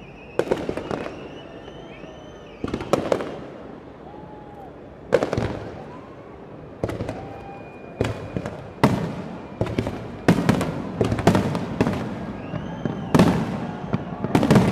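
Aerial fireworks shells bursting in a series of sudden booms, each trailing off with a rumble and crackle. The bursts come faster and overlap near the end.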